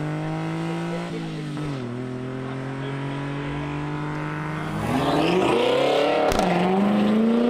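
A Honda Acty HA4 mini truck's small three-cylinder engine pulls away, dropping in pitch at a gear change a couple of seconds in. From about five seconds a louder engine note rises in, revving up with a short dip at a gear change and then climbing again.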